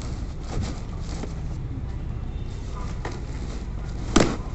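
Cardboard packing wrapped around a punching bag being pulled and torn off by hand: scattered crackles and scrapes, then one sharp, loud tear or thump near the end. A steady low rumble runs underneath.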